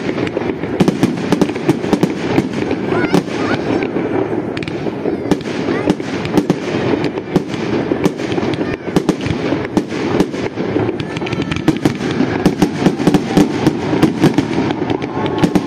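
Fireworks display: rising shells and aerial bursts make a dense run of sharp pops, bangs and crackles, many a second with no let-up.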